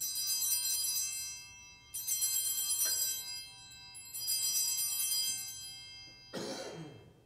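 Altar bells rung three times at the elevation of the chalice after the consecration, each ring a cluster of bright high chimes that fades over a second or two. A short noisy burst near the end.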